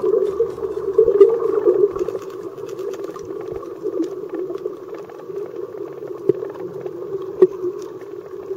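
Underwater sound picked up by a camera filming over a coral reef: a muffled, steady rush with scattered clicks and crackles. It is louder in the first two seconds, and two sharper clicks come near the end.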